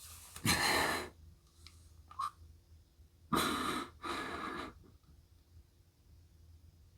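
A person breathing close to the microphone between spoken lines: two noisy breaths, one about half a second in and a longer one about three seconds in, with a small click in between.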